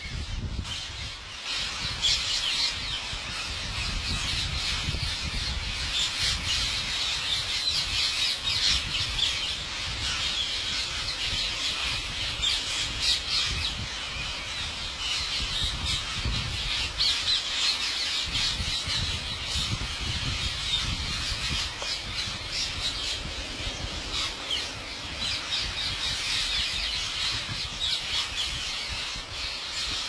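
A large flock of rose-ringed parakeets screeching together, a dense, unbroken chorus of harsh overlapping calls that thickens about two seconds in.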